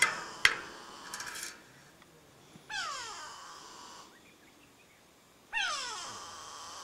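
A large animal giving high squealing calls three times, each one gliding down in pitch over about a second. A sharp knock sounds about half a second in.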